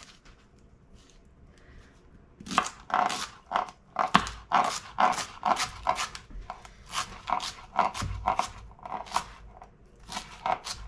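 A knife chopping carrots and leek, a steady run of sharp cuts at roughly two to three a second, starting about two and a half seconds in.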